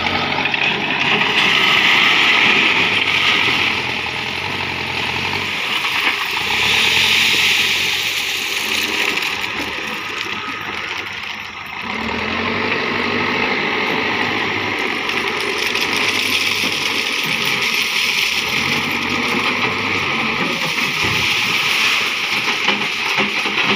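Diesel engine of a Terex backhoe loader running and revving as the machine drives and lifts a bucketful of stone ballast. The engine rises and falls several times.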